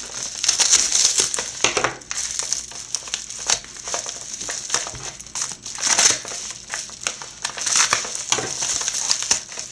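Padded mailer crinkling and rustling as it is slit open with a pocket knife and then handled, a continuous run of irregular crackles.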